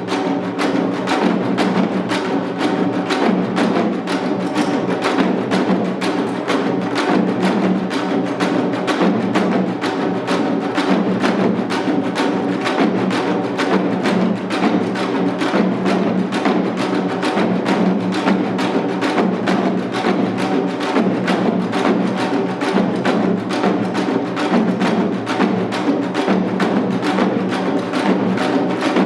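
Janggu, the Korean hourglass drum, played seated in the seoljanggu style: a steady, dense run of quick stick strokes with no letup.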